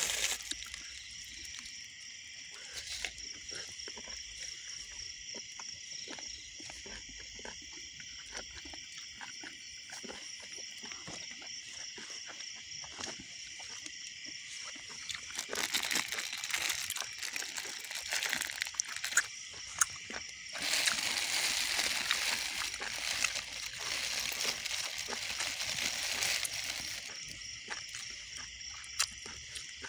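A steady high-pitched chorus of night insects calling from the field, with plastic bags crinkling and rustling as food is handled, loudest from about 16 to 20 seconds in and again from about 21 to 27 seconds in.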